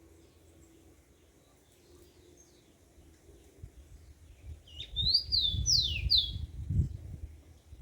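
A small songbird sings a short phrase of clear slurred whistled notes about halfway through, after a few faint notes. A low rumble sits under the phrase.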